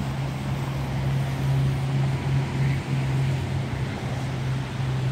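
Steady low motor hum over a continuous hiss of wind and water.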